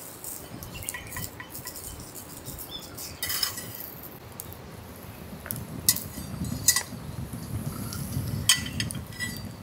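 Sausages cooking in a black iron frying pan over a wood fire, with light sizzling and crackling and several sharp clicks. Near the end there are metal clinks as the pan is lifted off the steel grill rack.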